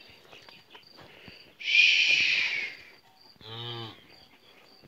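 A loud, hoarse rasp lasting about a second, then a young calf's short moo about three and a half seconds in, over the faint steady chirping of crickets.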